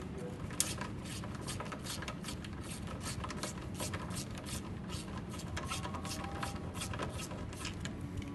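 Small irregular clicks and rubbing from a hand tool working a fastener loose on a motorcycle, several clicks a second, over a low steady background hum.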